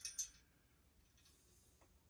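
Two or three light, sharp clicks right at the start as the clothes-rod hardware is handled against the wall, then near silence.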